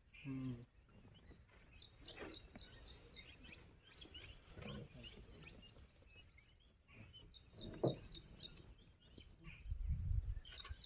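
Wild bird song: bursts of rapid, repeated high chirps, several notes a second, coming three times over a quiet open-air background. A low rumble comes in near the end.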